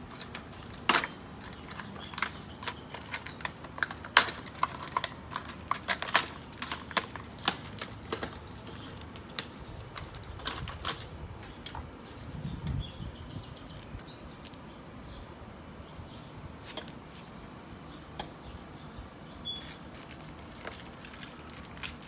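Light metal clicks and clinks, irregular and frequent in the first half and sparser later, from door-closer hardware such as the closer's brackets, pins and screws being handled and fitted.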